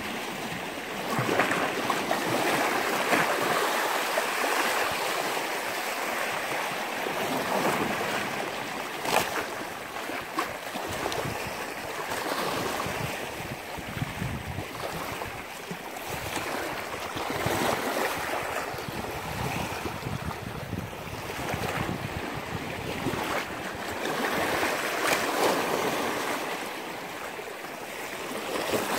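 Sea waves washing in, swelling and fading every few seconds, with wind blowing on the microphone. A single sharp click about nine seconds in.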